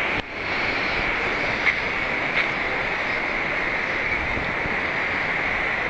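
Steady rushing outdoor noise with a constant hiss, broken by a brief dropout just after the start and two short ticks about two seconds in.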